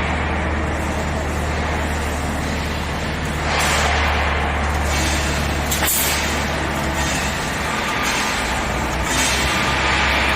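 Automatic wire mesh panel welding machine running: a steady low hum, with long bursts of air hiss every five seconds or so and one sharp click about six seconds in.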